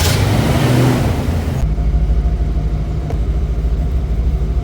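1987 Ford Mustang GT's 5.0-litre V8 just caught after a no-start blamed on a bad battery cable connection. It revs up briefly with a rising note, then settles a little over a second in into a loud, steady idle.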